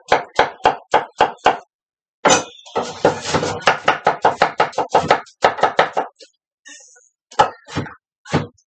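Knife chopping onion on a wooden cutting board, a steady run of sharp knocks about four a second, a brief pause, then a faster, denser run of chops for several seconds, ending with a few scattered strokes.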